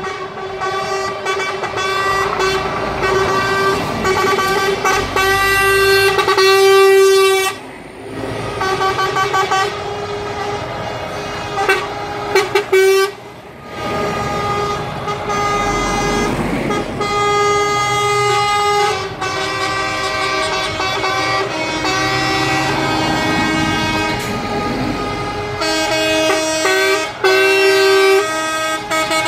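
Semi-truck air horns sounding again and again as a convoy of tractor units rolls past. Several multi-note horns overlap and are held for seconds at a time, with only brief breaks, over the low running of the diesel engines.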